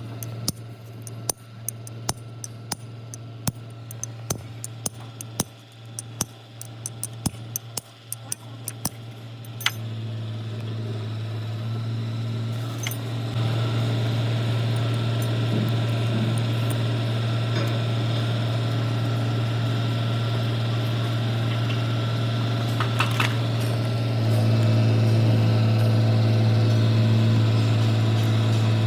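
Repeated sharp metallic clicks and taps for about the first ten seconds. Then a steady low mechanical hum that gets louder in steps, near the middle and again near the end.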